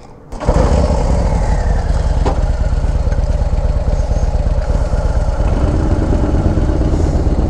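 Harley-Davidson Street Glide's Milwaukee-Eight 135 V-twin engine running steadily, coming in abruptly about half a second in.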